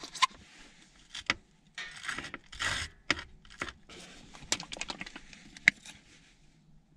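Handling noise of a ketchup bottle's stuck plastic lid being worked at and opened: scattered sharp clicks and short scraping rustles.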